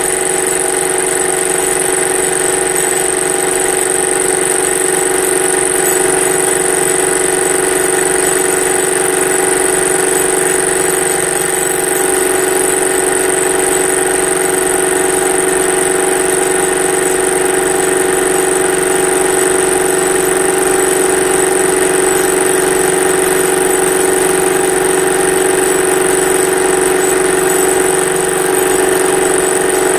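Benchtop metal lathe running at a steady speed with a spinning disc in the chuck: an even motor-and-gear whine with a thin high-pitched tone above it.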